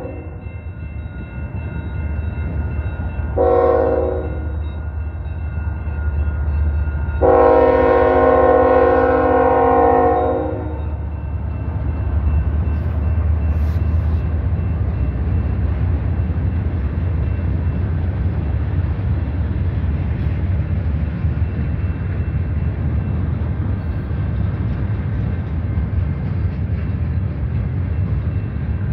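Freight locomotive air horn sounding a short blast and then a long one at a grade crossing. Then the train's steady rumble as the locomotives and autorack cars roll past.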